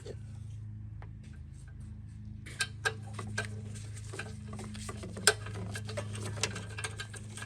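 Light clicks and taps of a mower's control cable and plastic handle parts being handled and fitted. They grow busier about two and a half seconds in, with a few sharper knocks, over a steady low hum.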